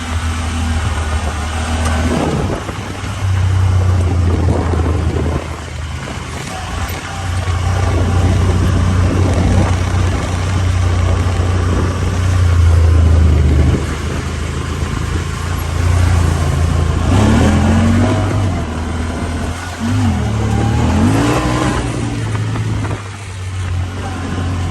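Honda Talon 1000R side-by-side's parallel-twin engine running under changing throttle while driving over sand. It eases off and picks up again several times, with a few quick rises and falls in pitch in the last third.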